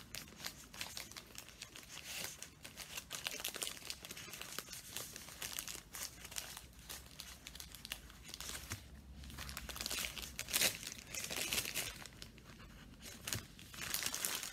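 Plastic packaging crinkling and rustling as hands handle and unwrap it: irregular crackles throughout, busier and louder about ten to thirteen seconds in.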